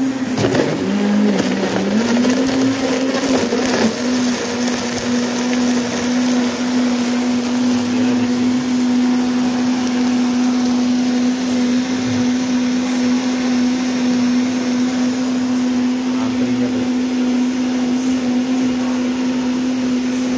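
Electric blender running steadily at high speed, blending guava juice. Its motor pitch sags about a second in and climbs back up within a second, with some knocking in the first few seconds.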